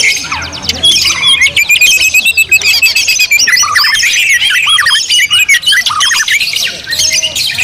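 Several caged white-rumped shamas (murai batu) singing at once: a dense, unbroken tangle of overlapping fast whistles and chirps.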